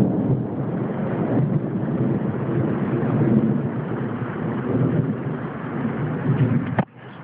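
Thunder rumbling low and continuously, rising and falling in level, then cutting off suddenly with a click near the end.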